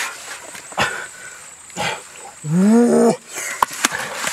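A man's short wordless vocal grunt about two and a half seconds in, rising in pitch and then held, amid scattered slaps and thuds of hands digging in wet mud.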